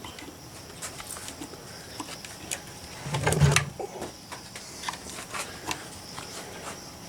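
Light clicks and taps of small pump parts being handled and turned while the head of a small electric water pump is worked on, with one louder knock about three and a half seconds in.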